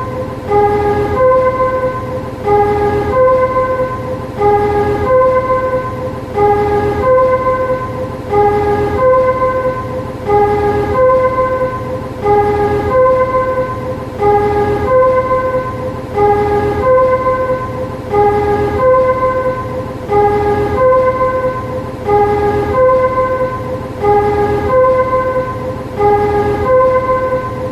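Railway yard shunting vehicle's warning chime: a short phrase of a few electronic notes, repeating about every two seconds, over a steady low rumble.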